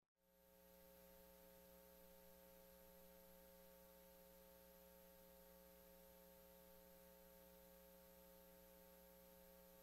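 Near silence: a faint, steady hum made of a few constant tones, with a thin high whine above it.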